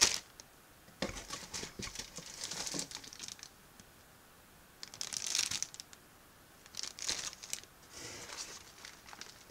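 Clear plastic parts bags holding RC kit sprues crinkling as they are handled and lifted out of a cardboard box, in three bouts of a second or two with short quiet gaps between.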